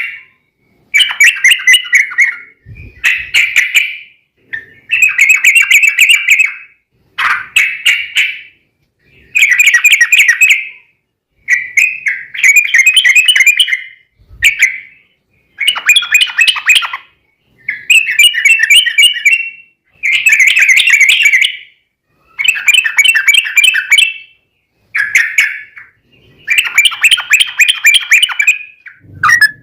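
Yellow-vented bulbul (trucukan) singing loud, rapid bubbly phrases about a second long, repeated over and over with short pauses between them. This is a long run of 'gacor' song of the kind used as a lure to make other bulbuls answer.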